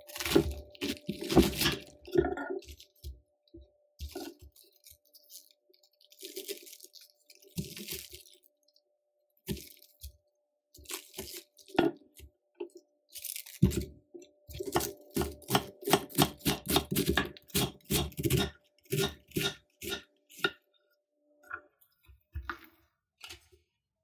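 Kitchen knife cutting through a raw green cabbage on a wooden cutting board: crisp crunching cuts, then a quick run of slicing strokes about three or four a second, each ending with a knock of the blade on the board.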